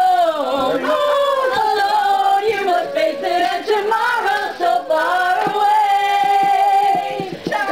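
Group of people singing together, several voices at once, with a long held note in the second half.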